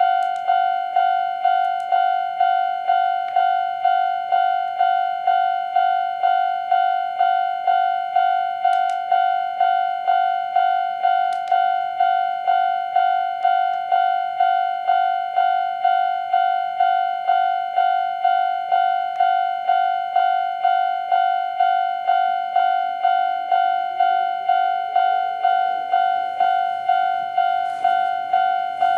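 Old-type electronic level-crossing alarm bell ringing steadily, one bell-like tone struck about three times every two seconds. Near the end a passing Konan Railway 7000-series electric train's motor whine rises in pitch under the bell.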